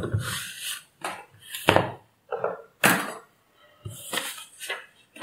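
A circuit board and small parts being handled and set down on a workbench: a string of irregular short knocks and clicks.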